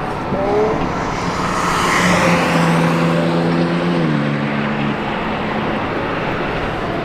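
Sports car driving past with its exhaust note swelling as it comes close. Its steady engine tone drops in pitch about four seconds in.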